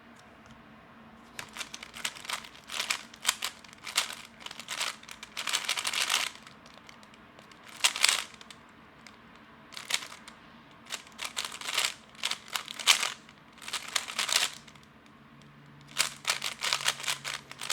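A lubed, loosened magnetic 3x3 speedcube being turned rapidly in a speedsolve: bursts of fast clicking and clacking turns broken by short pauses.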